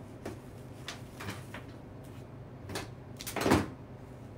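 Cut greenery and flower stems being handled and pushed into floral foam: a series of short knocks and rustles, the loudest and longest about three and a half seconds in.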